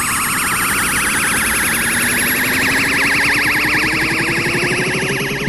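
Dragon Ball Z-style energy charge-up sound effect: a fast warbling, siren-like tone that slowly rises in pitch, building until it cuts off at the end.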